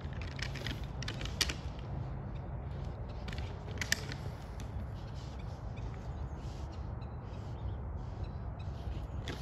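Two white-tailed bucks' antlers clicking and grinding as they spar with locked antlers, with two sharper clacks about one and a half and four seconds in, over a steady low rumble.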